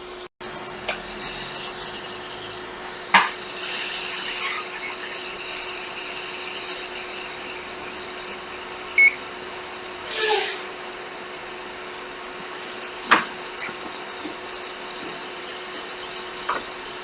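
Hot-air heater blowing steadily with a constant hum, heating an Xbox One S circuit board from below to melt the solder on its HDMI port. A few sharp clicks stand out above it, about three and thirteen seconds in.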